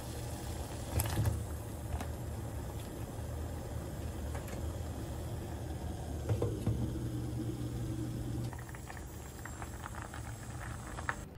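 Water at a rolling boil in a stainless steel pot with okra blanching in it: a steady bubbling hiss with a low hum underneath. The glass lid clinks against the pot a few times, sharpest about a second in and again around six seconds, and the bubbling turns to fine crackling near the end.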